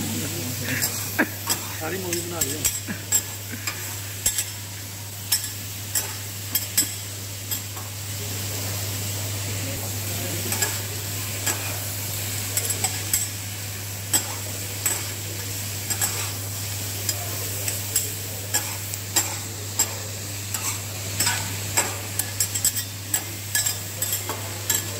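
Shredded cabbage and vegetables sizzling on a flat steel griddle, with two metal spatulas clacking and scraping against the plate at an irregular pace as they toss the food. A steady low hum runs underneath.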